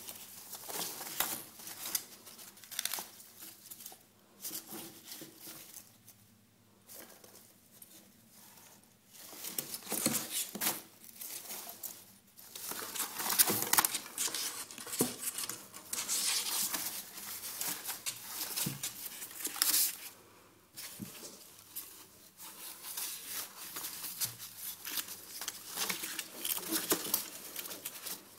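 Polystyrene packing peanuts rustling and crinkling against the sides of a cardboard box as a ferret burrows and thrashes among them. The noise comes in uneven bursts with short lulls.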